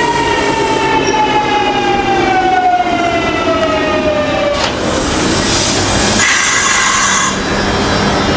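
Kintetsu 3200 series electric train's early Mitsubishi GTO-VVVF inverter whining, the whine falling steadily in pitch as the train slows. About four and a half seconds in it switches abruptly to a noisier sound with a steady higher tone.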